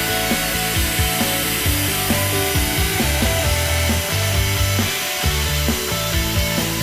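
CNC router spindle driving a small end mill through 3 mm aluminium sheet: a steady, loud, high hiss of the cut.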